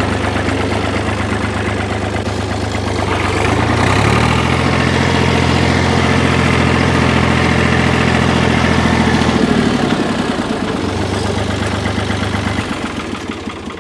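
Engine idling, rising in pitch about four seconds in and holding there until near ten seconds, then settling back and fading away near the end.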